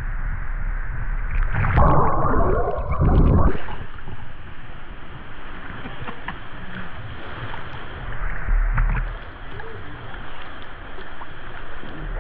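Pool water sloshing and splashing around a camera held at the surface, with a louder rush of splashing about two seconds in and a smaller surge later.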